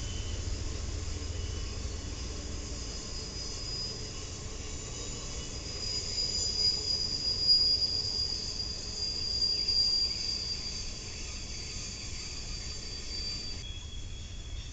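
Passenger train cars rolling past with their wheels squealing on a tight curve: a steady high-pitched squeal over the low rumble of wheels on rail, loudest around the middle. Near the end the sound changes abruptly to a quieter, lower squeal.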